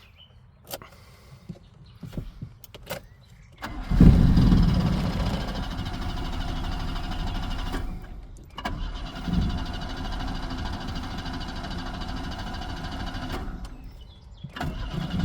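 A car engine being cranked on the starter in long attempts that don't catch: one of about four seconds, a second of about five seconds, and a third starting near the end. A few short clicks come before the first attempt.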